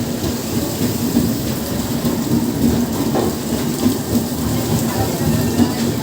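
Train pulling out of a station: a steady low rumble with a constant hum running under it.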